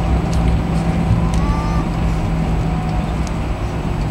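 Airbus A320 landing rollout heard inside the cabin: a steady low hum of the jet engines over a heavy rumble from the wheels on the runway, with scattered light clicks of cabin rattle, while the ground spoilers are retracted.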